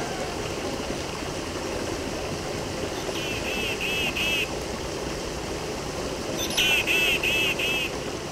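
Steady running water like a stream. Over it come high chirping calls in two runs of four quick notes, about three seconds in and again near the end.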